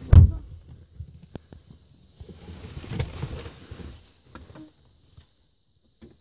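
A thump, then a couple of light clicks and a stretch of rustling as a child's seat belt is pulled across and buckled in a car seat.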